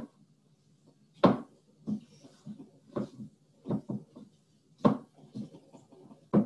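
Spatula stirring a very thick peanut butter, butter, powdered sugar and graham cracker dough in a mixing bowl. Each stroke gives a short knock or thud, irregular, about one every second.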